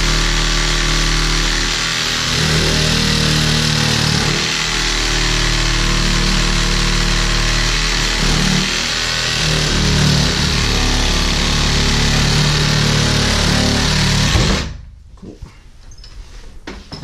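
Cordless drill running under load, boring into the centre of the old shower valve's cartridge. It runs steadily with small wavers in speed and cuts off suddenly about fifteen seconds in, followed by a few faint clicks.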